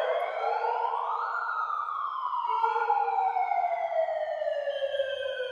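Megaphone's built-in siren sounding one wail: the pitch rises for about a second, then slowly falls away over the next four seconds.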